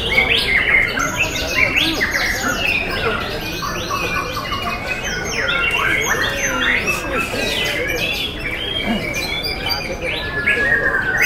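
White-rumped shamas singing in competition: a continuous, overlapping stream of rapid whistles, trills and glides from several caged birds at once, with the crowd's voices murmuring underneath.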